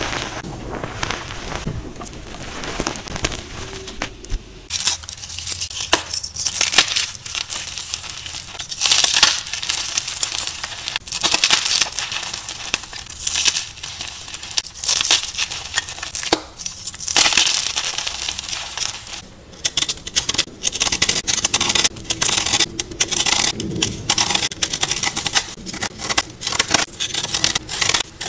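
Dyed gym chalk blocks crushed and crumbled between the hands: dry crunching and crackling in quick, irregular bursts, changing to a brighter, crisper texture about five seconds in.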